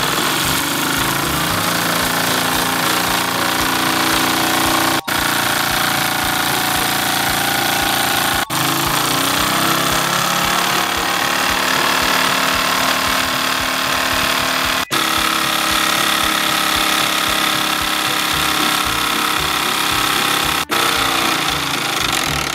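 Wilesco D20 toy steam engine running fast under steam, its rapid exhaust chuffing over a loud, continuous steam hiss. The sound swells as the regulator is opened, and it breaks off briefly four times.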